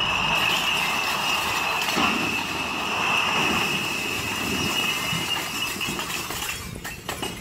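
Glass bottles pouring off a swaying stack of pallets on a forklift's raised forks and crashing and shattering on the concrete. A steady high squeal runs over the noise and stops about six and a half seconds in, with a few sharp clinks near the end.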